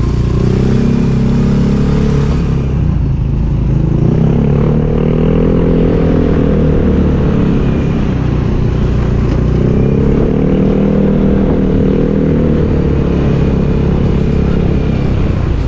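Motorcycle engine running while under way, its pitch rising and falling twice as it speeds up and eases off, over a steady low rumble.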